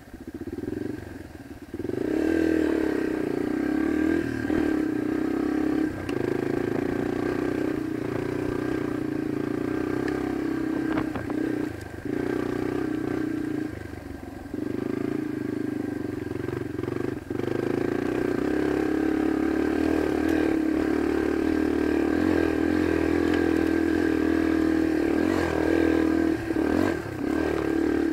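Yamaha dirt bike engine running under varying throttle on a rough trail. It is quieter for the first couple of seconds, then pulls harder, easing off briefly several times. Knocks and rattles of the bike over rocks come through now and then.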